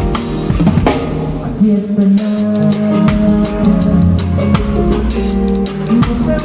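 Live band playing: a drum kit keeping a steady stream of hits under guitar and other held instrument notes.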